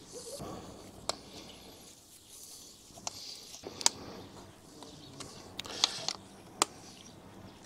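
Small hand tool work on a motorcycle radiator guard's mounting bolts: a T-handle hex key turning and clicking against the bolts, giving a handful of sharp, irregular clicks over a faint steady hiss.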